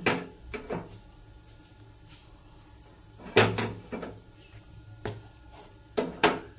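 A scattering of short, sharp metallic clicks and knocks, the loudest about three and a half seconds in, from a wire-mesh roti roaster being handled on a gas stove burner while a roti puffs over the flame.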